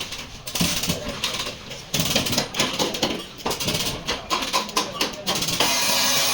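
Irregular clatter of knocks and clicks, as from tools and metal parts being handled, with a person's voice. A steady hiss starts about five and a half seconds in.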